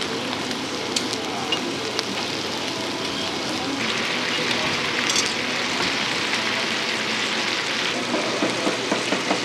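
Hamburger-steak patties sizzling in oil on a flat-top griddle, the sizzle growing brighter and louder from about four seconds in to about eight. Short clicks of metal tongs are heard about a second in and again near the end as the patties are turned and moved.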